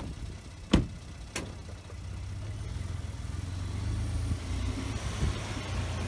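A few sharp knocks in the first second and a half, then the low, steady drone of a 2015 Ford Expedition driving slowly, heard from inside the cabin, slowly growing louder.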